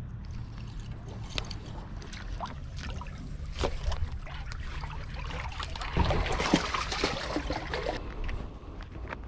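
Seawater lapping and trickling against the harbour wall and tetrapods, over a steady low rumble, with scattered sharp clicks. About six seconds in comes a louder two-second stretch of splashing.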